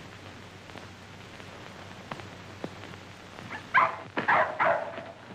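A dog barking, a quick run of about four loud barks starting about three and a half seconds in, over faint old film-soundtrack hiss.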